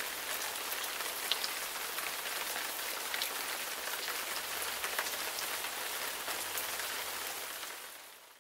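Steady rain falling on hard surfaces, an even hiss with many small drop ticks scattered through it, fading out near the end.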